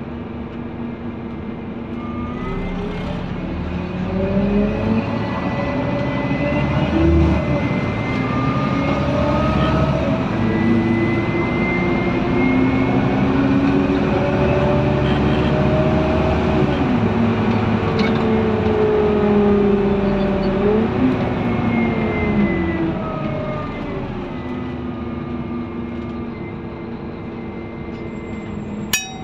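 Scania N230UD Omnidekka double-decker's five-cylinder diesel engine and driveline, heard from inside the passenger saloon as the bus is under way. The engine and transmission whine climbs and steps in pitch through the middle as the bus accelerates, then falls away as it eases off and slows near the end. A single sharp click comes right at the end.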